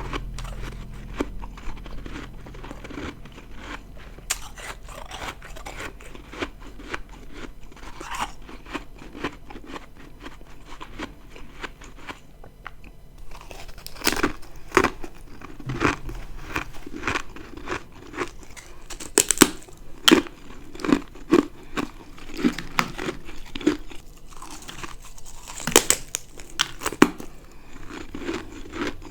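Ice being bitten and chewed close to the microphone: crisp crunching and crackling bites. Faint, fine crackles give way after a short pause about halfway through to louder, sharper bites, one or two a second.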